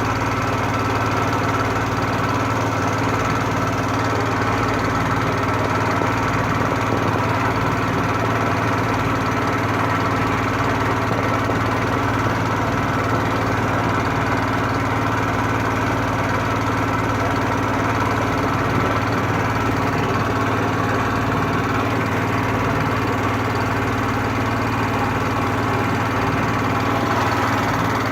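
Small boat's motor running steadily at an even pace, a constant low hum.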